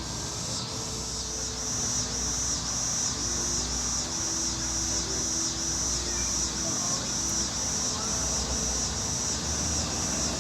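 Insect chorus: a high, steady buzzing that pulses evenly two to three times a second, over a low background rumble.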